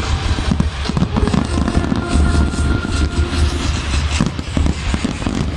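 Aerial firework shells bursting in rapid, overlapping succession: a continuous barrage of booms with no gaps between them.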